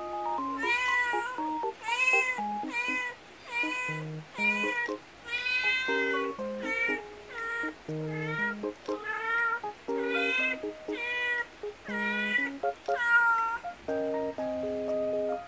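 An adult cat meowing repeatedly, about a dozen short calls that rise and fall, calling to her young kitten. Light background music with plucked notes plays under the calls.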